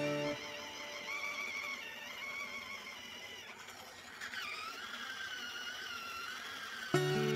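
Small battery-powered facial cleansing brush motor running with a thin, wavering high whine, which drops to a lower pitch about four seconds in and holds there.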